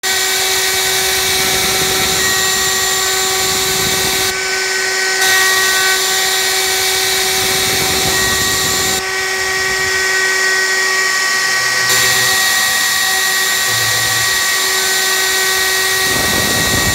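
Router on a CNC machine cutting a tenon into the end of an upright board: a steady motor whine under the noise of the bit chewing through wood. The cutting noise drops away briefly twice, about four seconds in and again from about nine to twelve seconds, as the bit eases off the wood.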